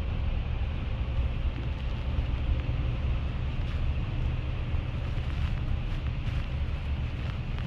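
Steady low rumble of a moving vehicle, with some road or wind noise over it.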